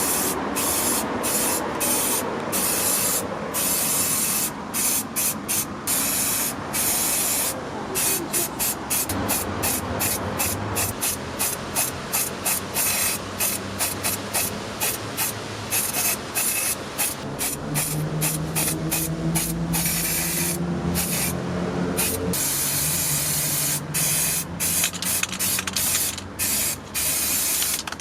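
Paint spraying onto a model car in many short bursts, a steady hiss broken by brief pauses. A low hum joins for a few seconds past the middle.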